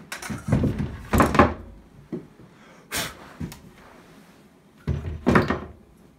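Axes being hung back on wall hooks: wooden handles and steel heads knocking and scraping against the chipboard wall, in three groups of knocks, the loudest about a second in and again about five seconds in.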